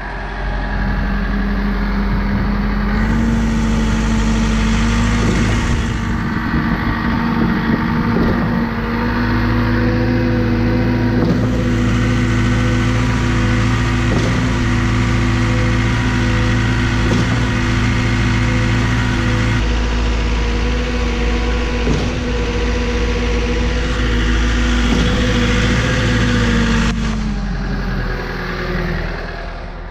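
Schwing SP 500 trailer concrete pump's engine running steadily under load while it pumps concrete, its speed rising about three seconds in and dropping back near the end, with a faint knock every couple of seconds.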